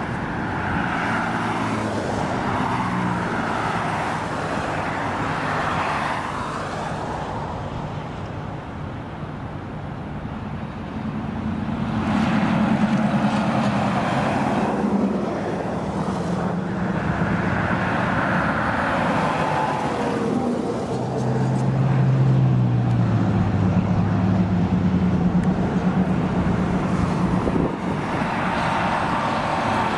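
Steady road traffic with vehicles passing one after another, the noise swelling and fading several times, with engine drone from a heavier vehicle about two-thirds of the way through.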